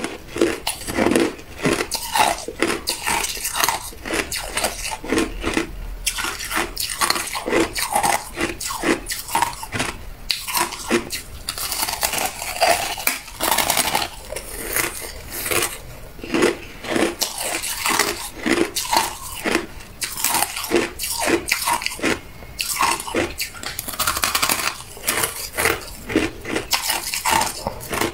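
Hard ice being bitten and chewed from a slab of frozen crushed ice: a steady run of sharp crunches, a few each second, as the ice cracks between the teeth.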